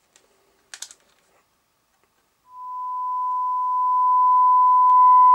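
A couple of small clicks as a test lead is clipped on, then a steady pure test tone from an audio signal generator comes through the HMV Stereomaster 2401's amplifier about two and a half seconds in, growing louder over a second or so as the volume is brought up, then holding steady.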